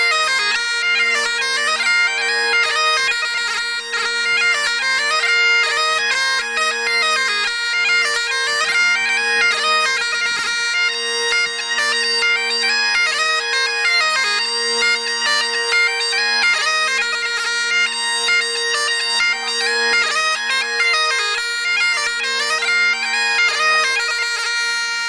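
Bagpipes playing a lively tune on the chanter over steady, unbroken drones.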